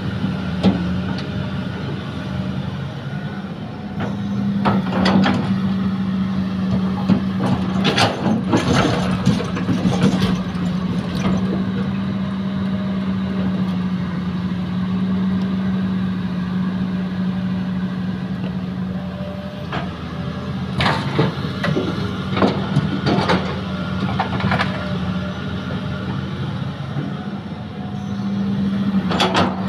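Heavy diesel engine of an excavator loading a dump truck with earth, running steadily, with loud bursts of clattering and clanking several times as a load is worked and dropped.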